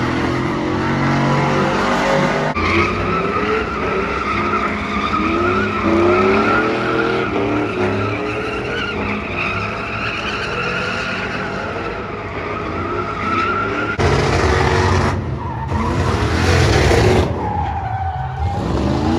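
A vehicle's engine revving up and down repeatedly while its tires squeal with a steady, wavering screech. The low rumble grows heavier about two-thirds of the way through.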